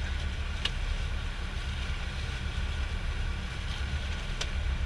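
Outrigger fishing boat's engine running steadily, a constant low drone under the sea and wind noise.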